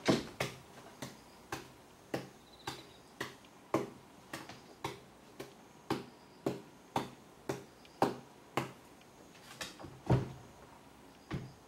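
A tabby cat's paws knocking on a wooden tabletop as it bats and pounces at a dangled foxtail-grass stem, about two sharp taps a second.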